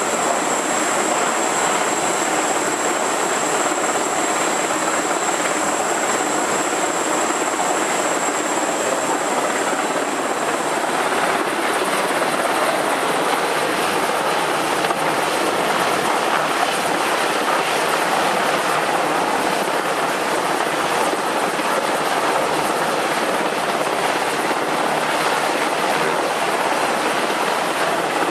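SH-60 Seahawk helicopter flying overhead, its rotor and twin turboshaft engines making a loud, steady, unbroken din.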